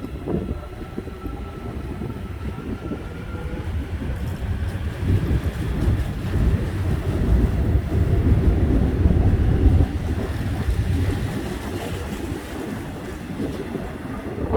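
Seoul Subway Line 1 electric commuter train pulling out of the station. A thin motor whine rises in pitch over the first few seconds, and the rumble of the wheels on the rails grows louder, then eases off as the cars go by.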